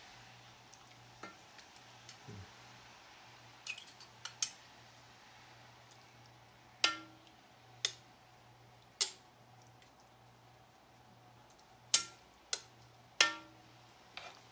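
Metal utensils clanking against a cast iron pot. There are about ten sharp knocks, each with a short metallic ring, coming singly or in pairs from a few seconds in, over a steady low hum.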